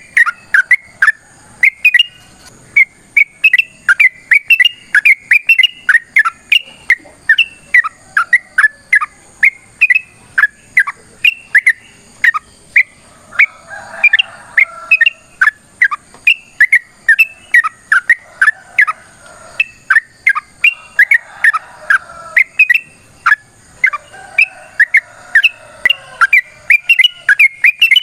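Yellow-vented bulbul (trucukan) singing a long, rapid run of short, bright notes, several a second, with softer chattering now and then.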